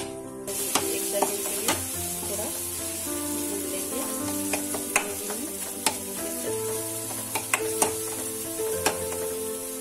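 Tomato-onion masala with ground spices sizzling in ghee in a steel kadai while a metal spoon stirs it, with irregular sharp clicks and scrapes of the spoon against the steel. The frying hiss sets in about half a second in.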